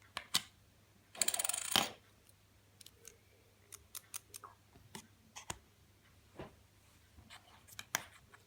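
Small sharp clicks and taps of a fidget spinner being handled and worked on, with a short rasping burst about a second in and scattered clicks after it.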